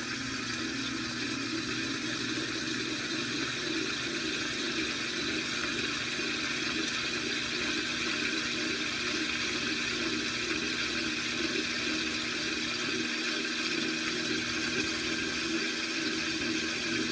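2012 LG top-load washing machine spinning steadily at low spin speed on the delicates cycle, a constant wavering hum with water rushing as it is spun out of the load.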